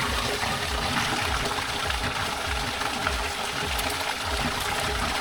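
Water gushing and splashing steadily, with a low pulse about twice a second.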